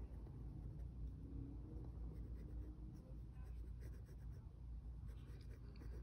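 Pencil scratching faintly on sketchbook paper in short drawing strokes, over a low steady room hum.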